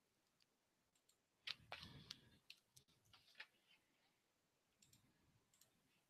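Near silence: room tone with a few faint clicks, three or four together around a second and a half to two seconds in and one more a little later.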